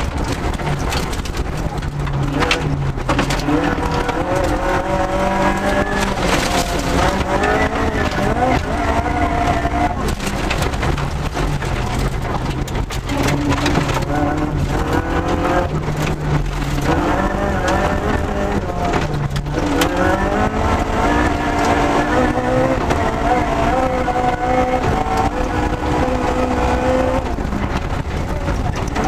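Ford Escort Mk2 rally car's engine heard from inside the cabin at full stage pace, its pitch climbing and falling again several times with gear changes and lifts, over the constant noise of the tyres on gravel.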